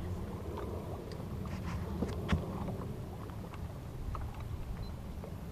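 Low steady rumble of wind and water around a bass boat, with scattered light clicks and knocks, the sharpest a little after two seconds in.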